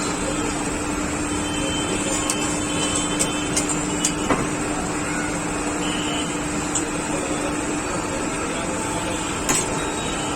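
Steady background din of a busy street-food stall, with a constant low hum and a few sharp clicks and taps scattered through it.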